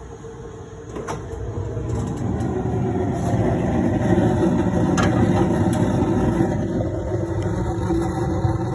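Homemade fan-fed waste oil burner running with a steady roar of flame and fan, growing louder over the first few seconds as the stove door is opened, with a light metallic click about a second in.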